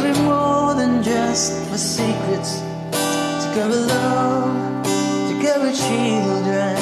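Guitar strummed steadily, with a man's voice singing along over it.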